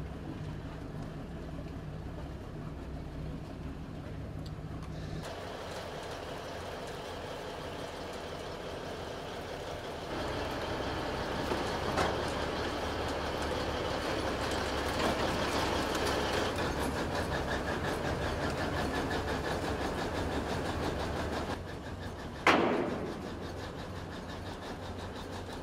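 Tracked armoured vehicle crossing a floating bridge: its engine running and its steel tracks rattling and clanking over the metal deck plates, with one sharp loud clank near the end.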